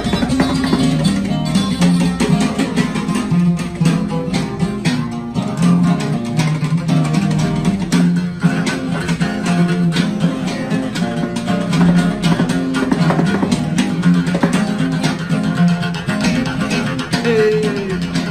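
Acoustic guitars playing regional Mexican music: a lead guitar picking clean, quick requinto runs over strummed acoustic guitar, with an acoustic bass carrying a steady bass line underneath.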